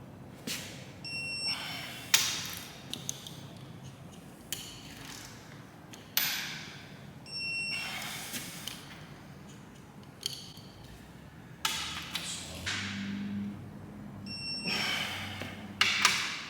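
Hand tools working bolts on a Cummins 6BT diesel engine during the final 90-degree angle-torque step: knocks and scraping, wrench-turning sounds, with a short metallic ping three times, about six seconds apart.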